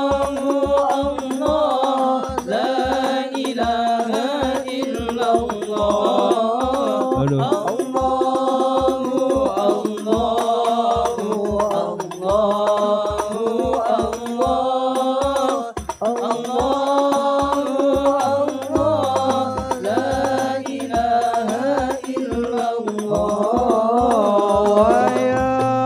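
Male voices singing an Arabic sholawat, a devotional song in praise of the Prophet, to hadrah accompaniment: hand-played frame drums (rebana) and a low drum beating steadily at about three to four strokes a second.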